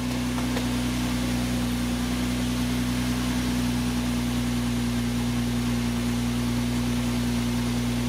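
2004 Infiniti FX35's 3.5-litre V6 running at a steady high idle, around 1,500 rpm where it should be about 900: the idle-too-high fault behind code P0507.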